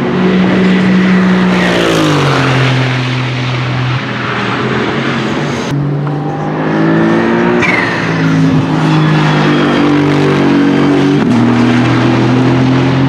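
Aston Martin Vantage GT3's Mercedes-AMG twin-turbo 4.0-litre V8 running at speed on track. Its note glides down about two seconds in, then rises and falls several times.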